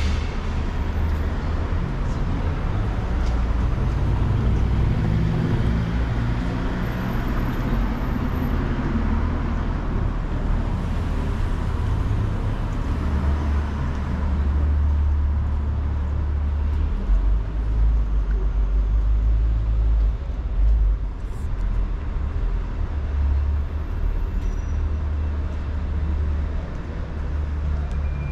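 Outdoor city street ambience with a low rumble that swells and eases unevenly, typical of distant traffic.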